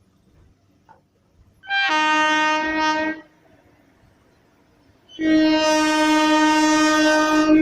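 Indian Railways locomotive horn sounding two blasts at one steady pitch: a short one of about a second and a half, then, after a pause, a long held blast that starts about five seconds in.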